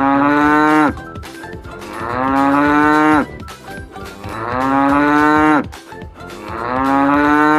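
Cow mooing four times in long drawn-out calls, each rising slightly in pitch and then falling away at its end, with short pauses between.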